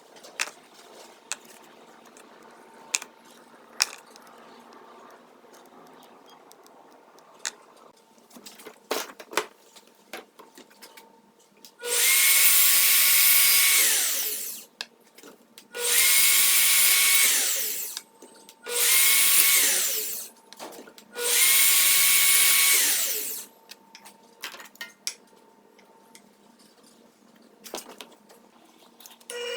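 A power tool's motor running in four bursts of about two seconds each, each one falling in pitch as it winds down on release, with scattered handling clicks and knocks before and between them.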